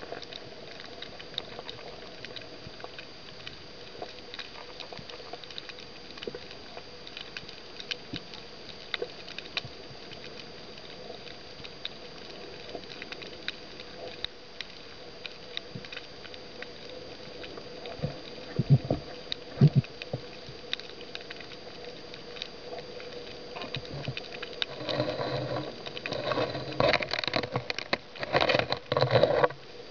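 Underwater reef ambience: a steady crackle of many small clicks over a faint steady hum. A few louder knocks come about two-thirds of the way in, and a run of louder knocking and scraping follows near the end.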